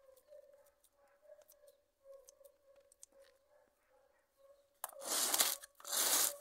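Scissors snipping parsley seedlings during a pruning, a string of small sharp clicks. Near the end come two loud rustling, tearing noises, each under a second long.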